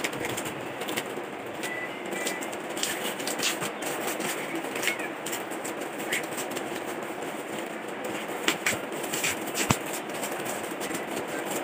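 Parcel wrapping being torn and pulled off by hand: paper and plastic tape crinkling and rustling, with scattered sharp crackles that are loudest about two-thirds of the way through.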